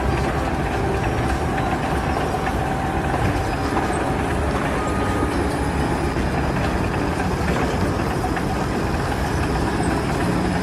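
A heavy engine running steadily, loud and even, with most of its weight in the low end.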